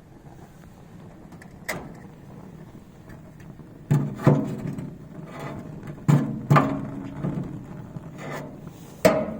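Metal parts of a gas grill being handled and set down: several clanks and knocks, mostly in quick pairs, each with a short metallic ring.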